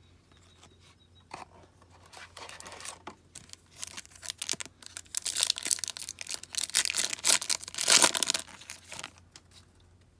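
A plastic trading-card pack wrapper being torn open and crinkled, with a few light clicks first and the crackling densest and loudest in the second half.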